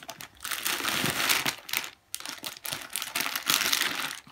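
Clear polythene packaging crinkling as a folded suit is pulled out of its plastic bag, in two long stretches of rustling with a short pause about halfway.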